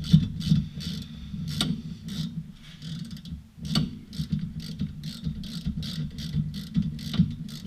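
Hand tool ratcheting on a car's front brake caliper: a steady run of short clicks, about two to three a second.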